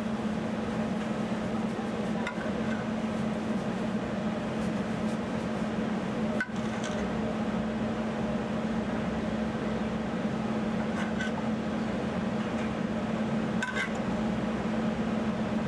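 A steady low hum from kitchen equipment runs throughout, with a few light clinks of a metal spoon against a frying pan as sausage is scooped out of the drained fat.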